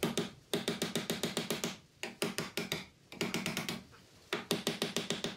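Background music: a rapid, pitched percussive pattern of about ten strikes a second, in five short phrases with brief gaps between them.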